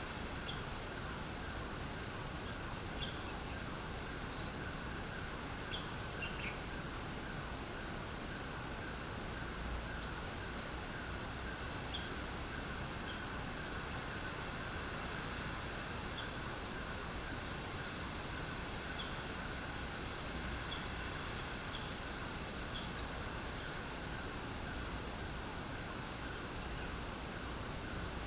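Steady hiss of light rain, with a continuous high-pitched insect trill and short bird chirps now and then.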